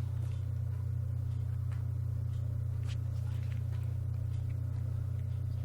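A steady low hum, with a few faint soft clicks from a paper booklet being handled.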